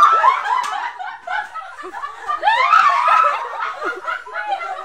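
A group of women laughing together, several voices at once, with loud peaks at the start and again about two and a half seconds in.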